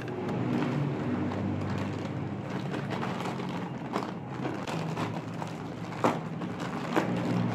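Plastic courier mailer bag crinkling as hands pull and tear at it, with a few sharp crackles, the loudest about six seconds in, over a steady low hum.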